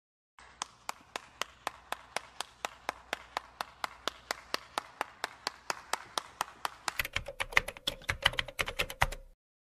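A run of sharp taps or clicks, steady at about three to four a second, then faster, uneven and louder for the last couple of seconds before they stop.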